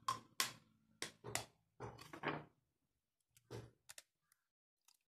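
Faint knocks and taps, several close together in the first two and a half seconds, then a few scattered small clicks.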